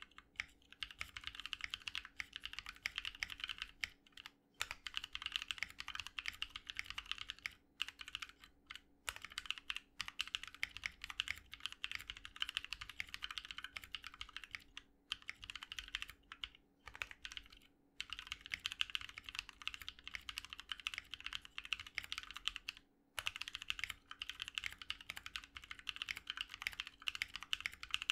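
Continuous fast typing on a custom 60% mechanical keyboard with lubed Holy Panda tactile switches, PBT Cherry-profile keycaps and an aluminum case and plate: a quick run of keystroke clacks, broken by brief pauses about every few seconds.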